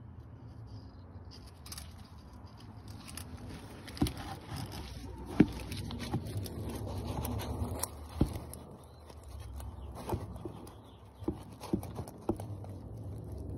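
Handling noise while working under a car: rustling and scraping, with a few sharp knocks, over a low steady hum.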